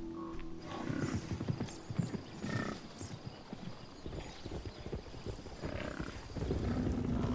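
Hooves of a moving herd of large hoofed animals: a dense, irregular clatter of footfalls.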